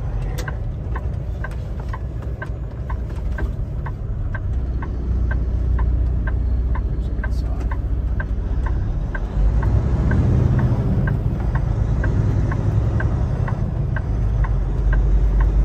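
Truck turn signal clicking steadily, about two clicks a second, over the low rumble of the Kenworth T680's diesel engine heard from inside the cab. The engine grows louder about nine seconds in as the truck pulls ahead.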